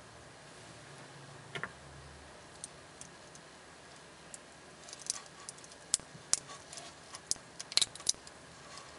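Small metallic clicks and clinks of a stainless steel watch bracelet's links and clasp being handled: one click about a second and a half in, then a quick run of sharp clicks in the second half.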